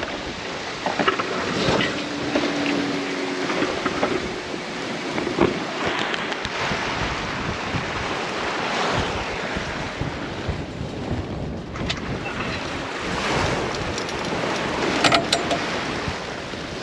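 Sea water rushing along a sailing yacht's hull as the boat rolls in the swell, with wind buffeting the microphone. A short creak sounds about two seconds in, and a few sharp knocks come from the boat, the loudest near the end.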